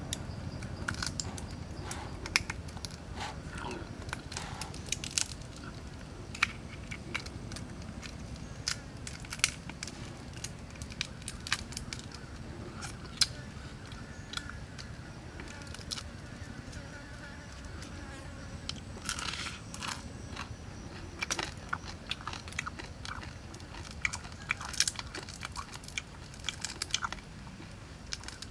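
Hands cracking and peeling the shells of grilled crayfish: irregular sharp crunches and snaps, with some chewing.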